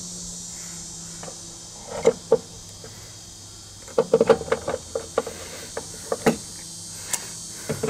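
Scattered light clicks and knocks of trolling motor parts being handled and fitted into the motor housing, thickest about four to five seconds in, over a steady high hiss.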